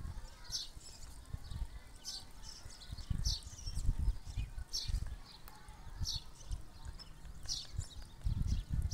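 A bird chirping again and again in short high calls, over an uneven low rumble.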